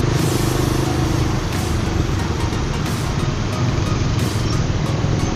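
Motorcycle engine running steadily at low speed in traffic, with road and wind noise.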